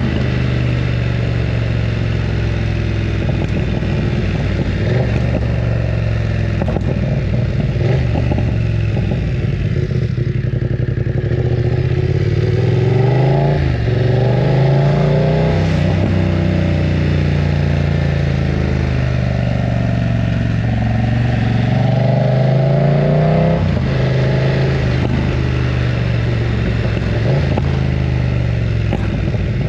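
BMW F900 R's parallel-twin engine running loud while riding, its pitch rising under acceleration and dropping back with gear changes, twice clearly around the middle and later on.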